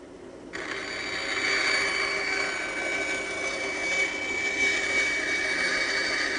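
Bandsaw running with a steady, high-pitched whine; it starts abruptly and gets fuller about half a second in.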